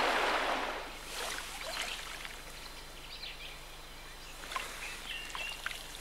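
Rushing river water for about the first second, then a sudden drop to a quiet outdoor background with scattered short bird chirps and a few faint swishes of footsteps through long grass.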